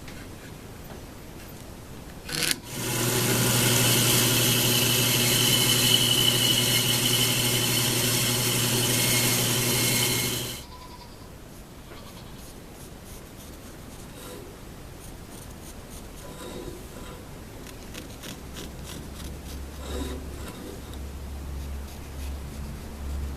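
A bandsaw switched on with a click about two and a half seconds in, running loud and steady with a low motor hum for about eight seconds, then stopping suddenly. After that come quieter workshop sounds with faint ticks.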